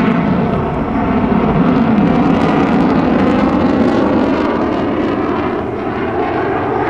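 F-16 Fighting Falcon jet flying past during a demonstration turn, its engine noise loud and steady, easing slightly near the end.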